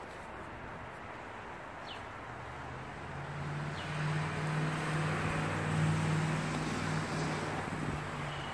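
A motor vehicle passing on the street: its engine hum and tyre noise build from about three seconds in, are loudest around six seconds, then ease off.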